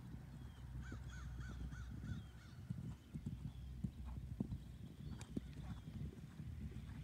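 Horse cantering on grass turf: hoofbeats as dull low thuds. About a second in, a short run of five high, arched calls sounds over them.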